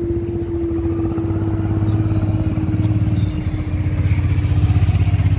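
Level crossing barriers rising, the barrier machines' motor running with a steady hum that sags slightly in pitch. Underneath is a low rumble that grows louder near the end.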